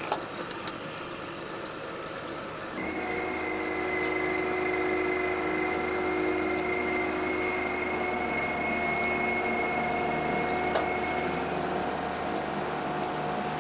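Ferry's engine running steadily with a high whine over a lower hum. It starts abruptly about three seconds in, after a quiet hum with a few light clicks.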